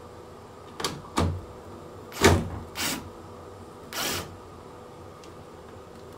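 Five short clacks at uneven spacing, the third the loudest, over a steady faint hum.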